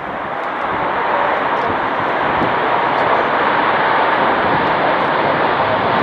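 Airbus A380-800's jet engines running as the airliner rolls down the runway after landing: a steady rushing noise with a faint high whine, building over the first second and then holding.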